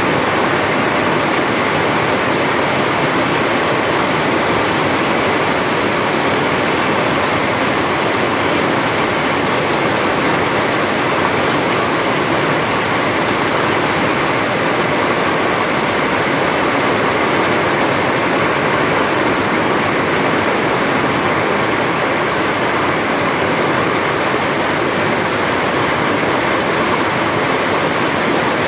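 Heavy rain falling steadily on trees and foliage, an even, unbroken rush with no thunder or single drops standing out.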